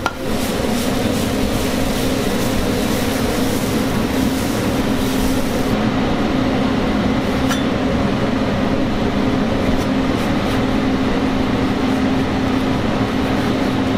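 Steady rushing kitchen noise with a low hum from a hot dosa griddle (tawa) and its surroundings, as dosa batter is spread, scraped and folded on the griddle; the high hiss dulls about six seconds in.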